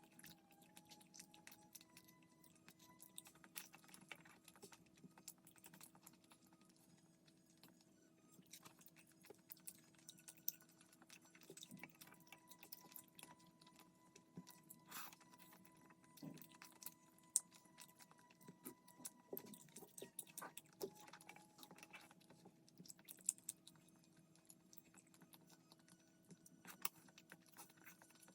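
Faint eating sounds: scattered small clicks and taps of chewing and utensils, with no speech, over a steady low hum.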